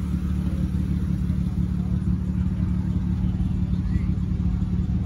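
A car engine idling steadily close by, a low, even running sound that holds the same level throughout.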